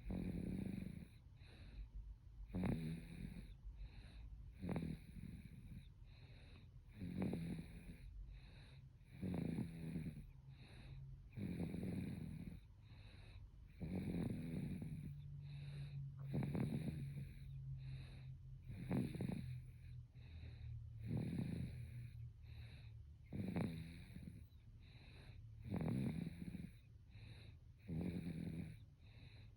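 Baby snoring while asleep: a steady, regular snore about every two and a half seconds, a dozen or so in all.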